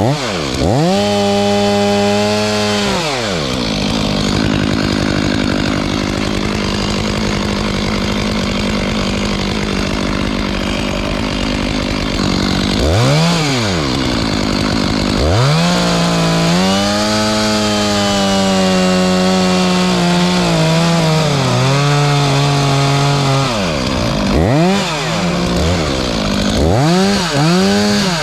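Two-stroke chainsaw running hard, its engine note dropping and climbing back up several times as the throttle is let off and opened again. For a long stretch a few seconds in it holds a steady, lower note with added rasping noise, as when the chain is cutting through wood.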